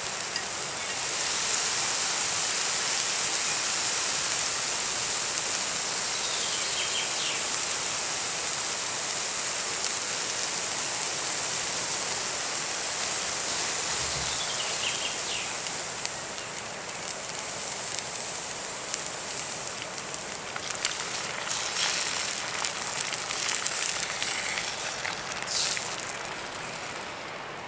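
Food sizzling over a campfire: a steady frying hiss, with sharp crackles and pops growing busier from a little past the middle.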